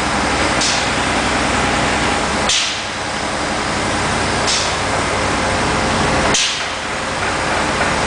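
Spray-painting rig working on a ship's hull: a steady loud machinery noise with a short hiss about every two seconds, the low rumble dropping out briefly twice.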